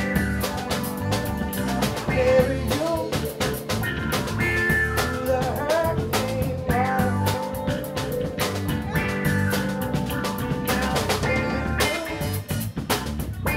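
Live rock band playing: electric bass guitar, drum kit and electric guitar, with a melodic line that bends in pitch over a steady drum beat.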